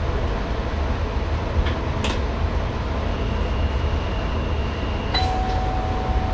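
Steady low rumble of noise inside the driver's cab of an NS ICM (Koploper) electric train. A click comes about two seconds in, a high electronic tone sounds for about two seconds, then with another click a lower tone takes over and holds.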